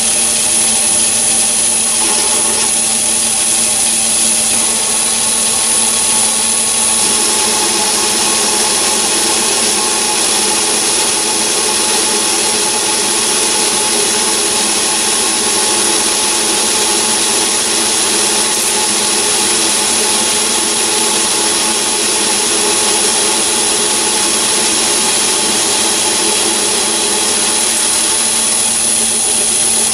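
Myford ML7 lathe running steadily while a single-point tool turns down a diameter on a 20 mm steel bolt held in an ER20 collet chuck, with a constant high whine over the cutting noise.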